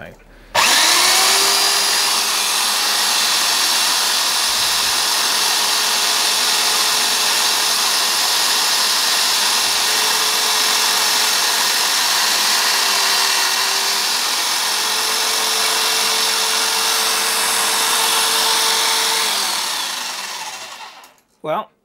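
Electric drill motor spinning up and running steadily, driving a centre drill into a phosphor bronze bush at an angle. Its hum sags slightly now and then as the bit is fed in, and it switches off near the end and winds down.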